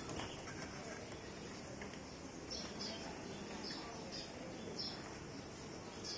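Faint bird chirps: a run of short, high chirps starting about two and a half seconds in, roughly one every half second, over quiet room noise.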